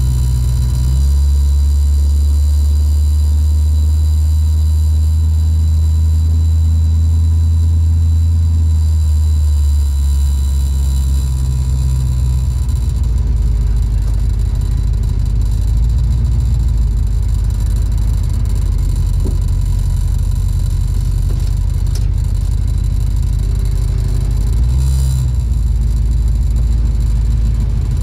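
Ford Mustang's engine running as the car is driven, heard from inside the cabin: a steady low drone whose pitch shifts about a second in, around ten seconds in, and again near the end.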